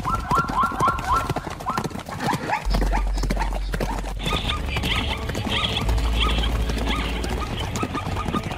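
Zebra barking: a fast run of short yelping calls, about four a second, loudest in the first two seconds and trailing off into fainter calls, with scattered thuds.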